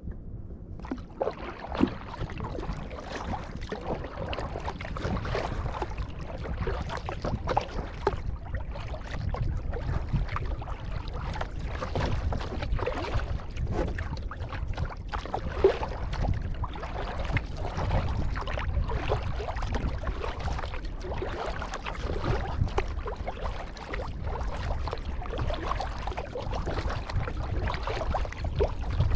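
Kayak paddle strokes in the water: repeated irregular splashes and trickling drips, with a steady low rumble underneath.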